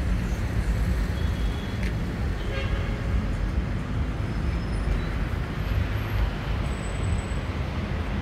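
Steady street traffic noise, a continuous low rumble of passing vehicles with no single event standing out.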